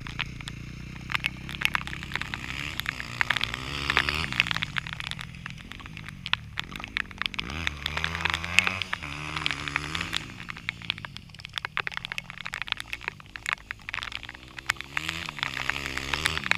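Dirt bike engines revving up and easing off again and again as the bikes ride around a dirt track, with frequent sharp crackles and ticks over the engine sound.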